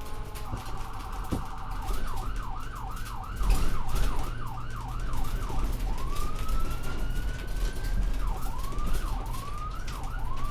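Ambulance electronic siren cycling through its modes. It starts on a rapid warble, switches to a fast yelp of quick rising-and-falling sweeps at about two and a half a second, then gives one long rising wail about six seconds in and returns to the fast yelp near the end. A steady low rumble runs underneath.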